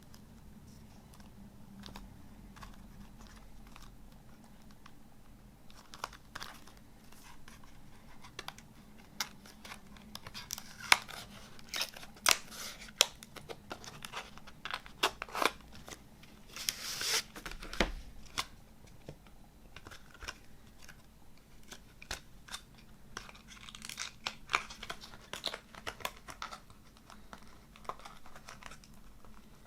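A CD package being handled and opened by hand: crinkling and tearing of wrapping with sharp clicks and taps. It is near-quiet for the first several seconds, and a longer tearing sound comes about two-thirds of the way in.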